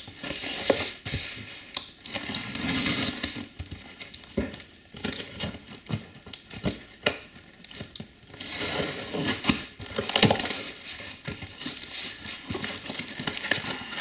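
A taped cardboard box being handled and opened: packing tape tearing and peeling, cardboard flaps rustling and scraping, with scattered knocks and taps as the box is turned over. Near the end crumpled packing paper rustles.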